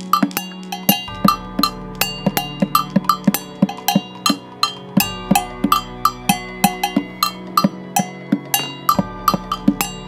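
Percussion-led music: a fast, even run of sharp, clicking strikes, about five a second, over sustained low notes.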